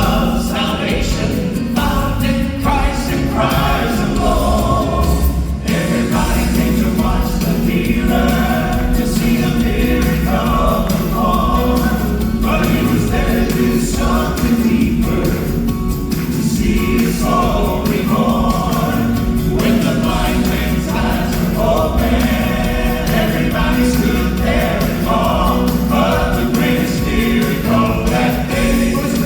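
Gospel vocal group singing in harmony over instrumental accompaniment.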